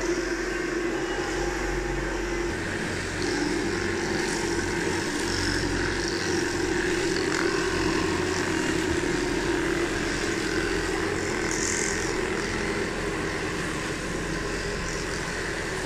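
Steady mechanical drone of radio-controlled model construction machines running, a whirring hum of small motors and gearing without a break.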